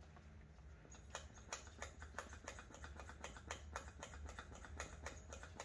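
Faint quick clicking, about three clicks a second, from brake-bleeding gear as fluid and air are drawn out of the caliper's bleeder through a hose.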